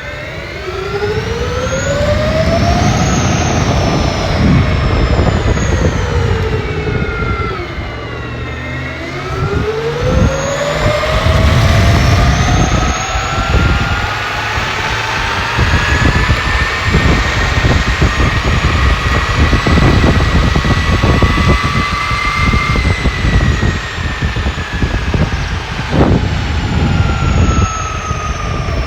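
A 300KV brushless electric motor whining as it spins up and down. The pitch rises over the first few seconds, drops to a low point about eight seconds in, then climbs again and holds high before easing off near the end, over a steady rumbling noise.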